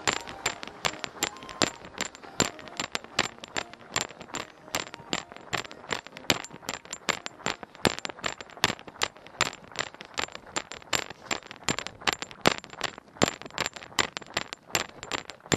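A runner's footfalls on a gritty path, a sharp crunching click with each stride about three times a second, picked up by a body-worn camera that jolts with every step. A faint steady high whine runs underneath.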